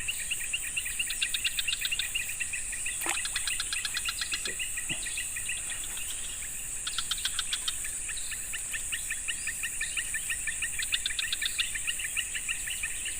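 Outdoor insect and bird chorus: a steady high-pitched insect drone with repeated trains of rapid chirps that come and go every second or two.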